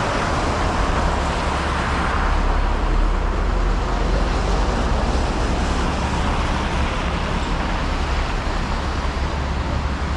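Steady city street traffic noise from passing cars, with a constant low rumble beneath.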